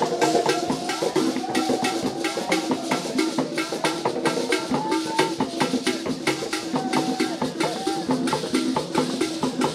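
Drum-and-percussion music with a rapid, steady beat of sharp, clacking strokes, with a few held, sliding melodic notes over it.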